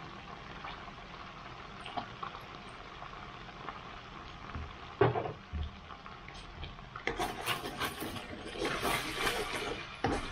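Chilli sauce with chicken stock sizzling and bubbling in a wok, with a couple of knocks about halfway. Over the last three seconds a spatula stirs and scrapes the wok, louder and crackly.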